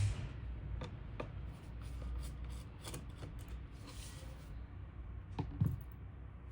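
Light clicks, taps and rubbing from hands working on a small computer's hardware, over a steady low hum; the loudest knocks come at the start and about five and a half seconds in.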